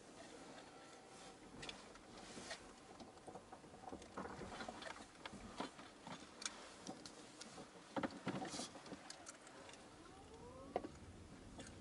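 Faint sound inside a slowly moving car: a low steady cabin noise with scattered clicks and light crackles, as from tyres rolling over gravel. A faint rising whine comes in near the end as the car pulls onto the sealed road.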